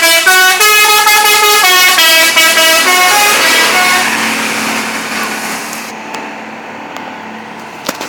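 Putra Berdikari bus's multi-tone "telolet" horn playing a stepping tune, stopping about three and a half seconds in. Then a rushing noise fades away, with a short knock near the end.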